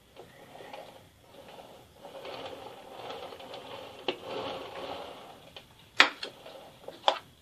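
Metal palette knife spreading and smoothing Italian meringue over a cake: a soft, uneven scraping smear, followed near the end by a few sharp clicks.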